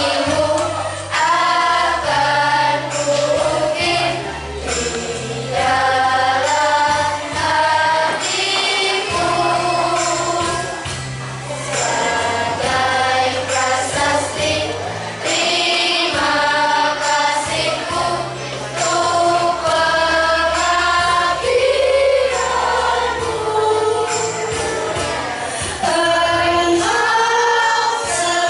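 Children's choir of boys and girls singing together, over a low accompaniment of held bass notes that step from pitch to pitch.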